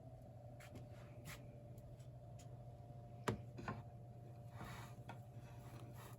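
Quiet indoor room tone with a steady low electrical hum, a few light clicks, a sharper click a little past three seconds, and a short rustle near five seconds, like things being handled.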